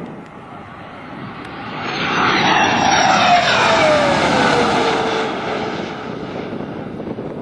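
JF-17 Thunder jet fighter's single turbofan passing close as it comes in to land. The rush of engine noise swells to a loud peak about two seconds in, with a whine that falls in pitch as the jet goes by, then dies away.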